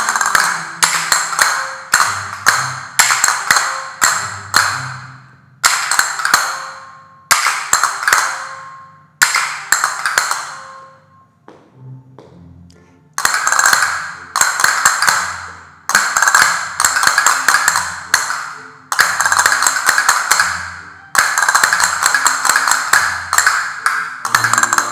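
Several pairs of castanets played together in a class, in phrases of rapid rolls and clicks ending in strikes, one phrase every second or two, with a short pause a little before the middle. Recorded Spanish music with a low bass line plays beneath.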